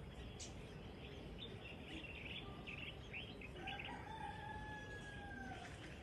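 A rooster crowing once, a drawn-out call of about two seconds that starts a little past the middle and falls slightly at the end, with small birds chirping briefly just before it.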